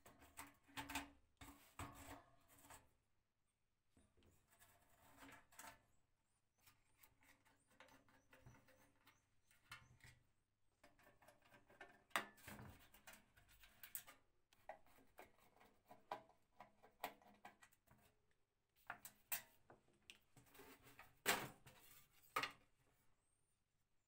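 Quiet, intermittent handling sounds of a screwdriver working screws out of a vintage electric heater's metal body: scattered clicks, scrapes and light knocks of metal on metal, the sharpest knock near the end as the heater is taken apart.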